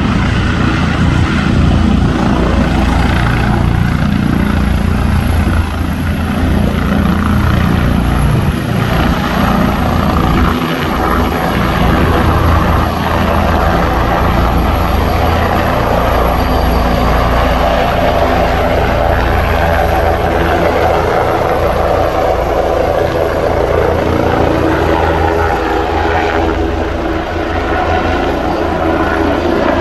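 Helicopter turbine engine and rotor running loudly and steadily: a deep rumble with a thin high whine over it.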